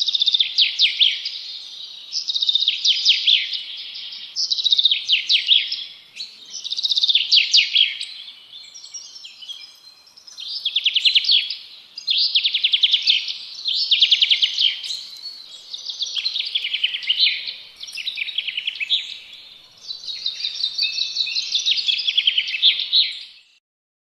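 A bird singing a repeated phrase of rapid, high trilled notes, about a dozen times in a row, each phrase lasting a second or two.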